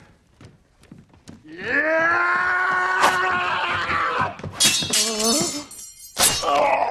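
A man's long held yell, then a quick flurry of sharp sword hits, and one loud slashing blow near the end.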